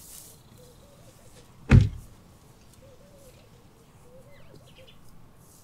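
Toyota Hilux pickup's door slammed shut: one heavy thud a little under two seconds in.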